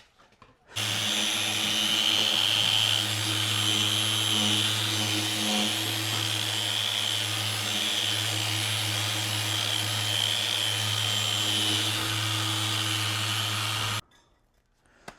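Handheld electric power tool switched on about a second in, running steadily at an even speed with a low hum and a high whine, then switched off abruptly near the end.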